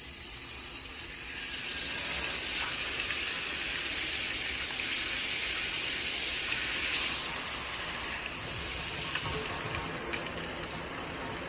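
Water spraying steadily from a shower head, an even hiss.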